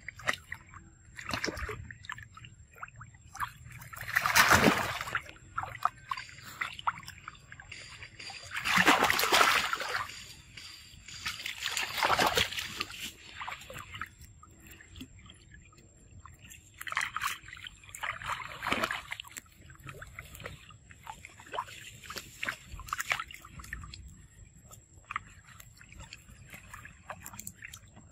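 Water splashing and sloshing as long-tailed macaques swim and dive in a pool: irregular bursts of splashing, the biggest about four, nine and twelve seconds in, with lighter splashes and drips between.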